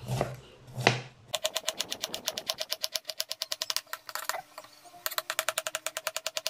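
Serrated kitchen knife rapidly chopping jicama on a plate, mincing it very fine: quick, even taps about ten a second in two runs with a short break in the middle, after two single knocks at the start.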